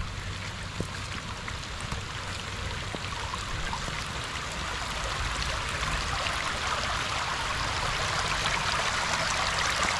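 Stormwater rushing down a rock-lined riprap channel like a river, a steady rush of water that grows gradually louder toward the end.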